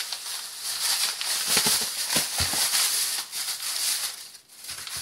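Rustling and scraping handling noise, with a few soft knocks between about one and a half and two and a half seconds in.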